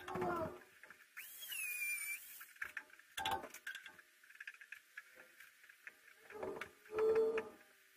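Intermittent handling noises at a workbench: rustling, scraping and light knocks, with a brief rising whine that levels off about a second in.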